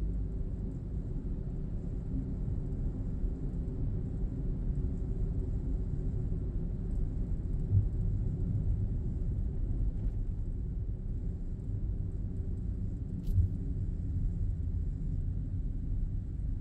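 Steady low rumble of a car driving on city streets, heard from inside the cabin. Two brief thumps stand out, about eight seconds in and again about five seconds later.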